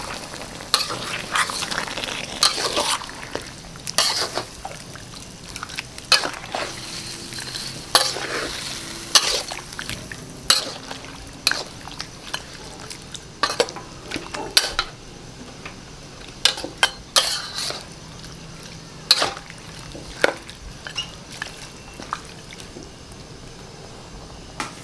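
Metal ladle scraping and clinking against a wok as chicken pieces are stirred in a sizzling chilli sauce. The clinks come irregularly over a steady sizzle, thinning out after the first half.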